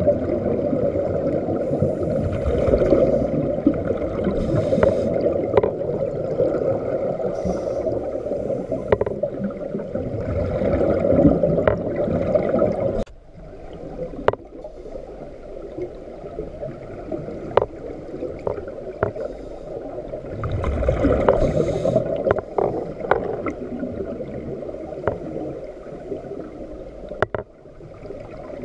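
Underwater: a scuba diver's exhaled bubbles from the regulator rumbling and gurgling in surges. About halfway through they drop away sharply, leaving fainter water noise with scattered sharp clicks, then another surge of bubbles.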